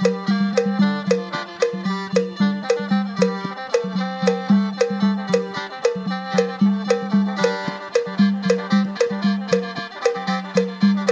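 Instrumental Isan mor lam band music between sung verses: a steady low note and a fast melody over a quick regular beat.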